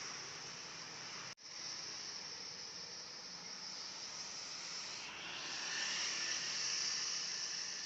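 Swiftlet call recording (a lure sound for swiftlet houses) playing: a dense, steady high-pitched chatter. It breaks off for a split second about a second and a half in, where the recording cuts, then carries on and grows a little fuller and louder later.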